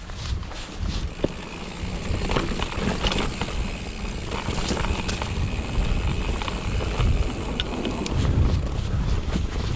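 Mountain bike descending a rocky trail: a gusty rumble of wind buffeting the microphone over the tyres' noise on the rocks, with scattered sharp knocks and rattles as the bike hits stones.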